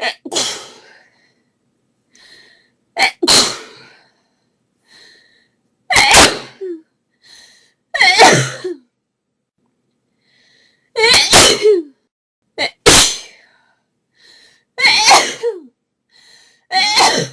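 A woman sneezing again and again in a fit, about nine loud sneezes roughly every two seconds. Most are preceded by a faint, short in-breath, and a couple come as a quick catch followed at once by the full sneeze.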